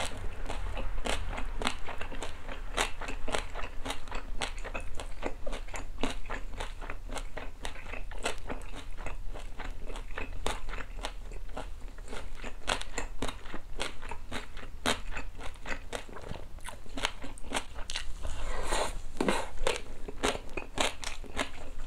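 A person chewing bossam close to the microphone: boiled pork with salted napa cabbage and kimchi stuffing, in a steady run of crunchy chews, about three a second.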